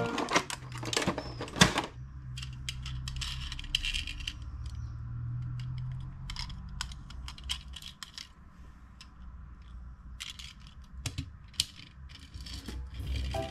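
Small diecast metal toy cars and a clear plastic blister tray being handled: scattered sharp clicks, taps and plastic crackles over a low steady hum.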